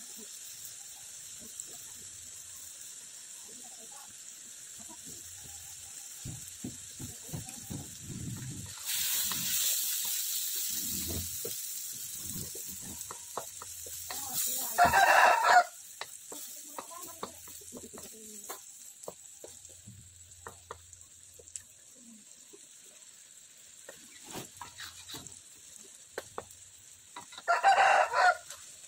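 A rooster crows twice, once about halfway through and again near the end, and these are the loudest sounds. In between, a wooden spatula knocks and scrapes in a metal wok of frying diced food, with a stretch of sizzling about a third of the way in.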